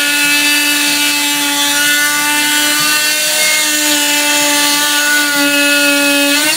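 Oscillating multi-tool running steadily at one high-pitched whine as its blade cuts along the top edge of a baseboard, throwing up dust.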